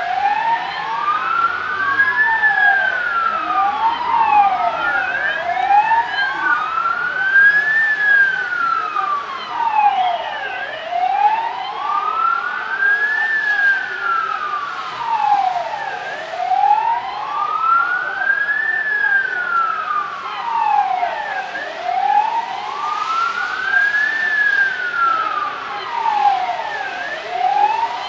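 Two sirens wailing at once, each rising and falling slowly about every five and a half seconds, out of step so that their pitches cross.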